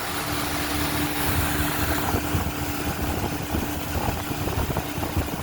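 Boat motor running steadily as the boat travels along the river, holding one even pitch.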